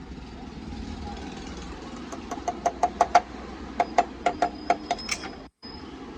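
Rapid metal-on-metal tapping, two quick runs of about six sharp taps a second, each ringing briefly, over a steady low hum. It sounds like parts being tapped to seat a washer on the motorcycle engine's magneto side.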